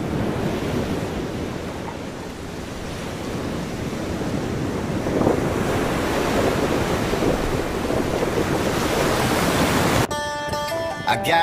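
Outdoor rushing noise of wind buffeting the microphone mixed with ocean surf breaking below, uneven and growing a little louder toward the middle. Music cuts in abruptly near the end.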